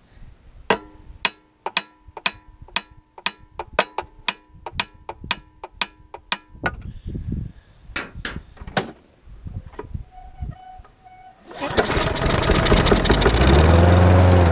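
A series of sharp clicks about twice a second, then the mower's small engine is pull-started and catches, running loudly for a few seconds. Its speed rises and then starts to sag near the end. It is a mower with a carburetor fuel problem, which the owner suspects is a stuck float.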